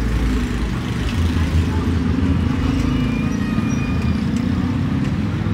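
Battered fish deep-frying in a large wok of oil, a steady sizzle under a dense low rumble and background chatter.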